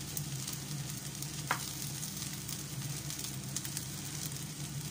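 Chicken masala sizzling in a hot pan as soaked rice flakes are tipped in from a bowl, with a single light tap about one and a half seconds in and a low steady hum underneath.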